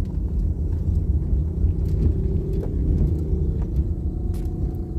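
Steady low rumble of engine and road noise inside the cabin of a moving Toyota car with a manual gearbox.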